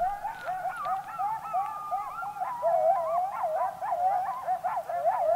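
A pack of coyotes yipping and howling together: many high, wavering calls overlapping, growing busier and louder about halfway through.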